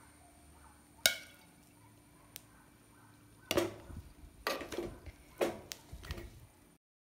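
A metal serving spoon knocking and scraping against a clay pot while scooping cooked rice: one sharp click about a second in, then a run of knocks and scrapes in the second half, cutting off suddenly near the end.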